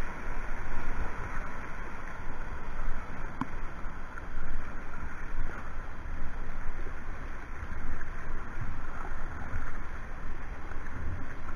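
Turbulent whitewater at a river weir rushing and splashing close around a kayak, an uneven wash of noise that swells and dips.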